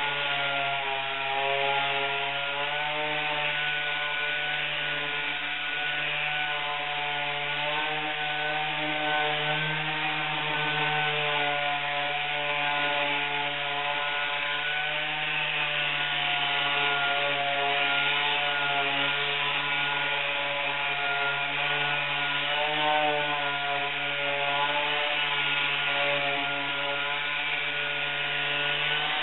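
Pneumatic random-orbital (DA) sander running continuously while wet-sanding cured gel coat with 1000-grit paper. It gives a steady whine whose pitch wavers slightly as it is worked over the surface, over a steady hiss.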